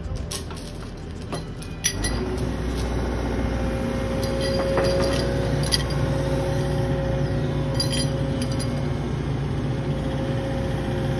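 Excavator running, its engine and hydraulic whine picking up about two seconds in. Steel lifting chains clink as they swing off a precast concrete cesspool ring.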